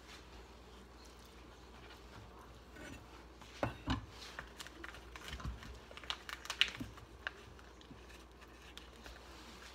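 Kitchen handling on a wooden cutting board while raw bacon pieces are gathered into a pile: quiet at first, then a pair of knocks about four seconds in, followed by scattered light clicks and taps as a plate is picked up.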